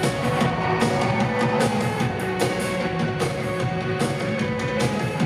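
Rock band playing live in a large concert hall, heard from the audience: a steady drum beat under sustained guitar and keyboard chords.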